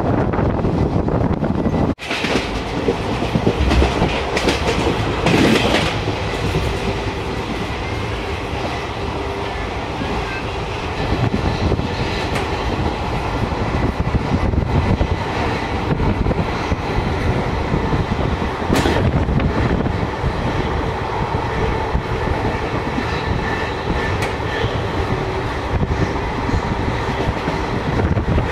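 Passenger train running along the track, heard from an open coach door: steady wheel-on-rail rumble with clickety-clack over the rails, and the sound dropping out briefly about two seconds in.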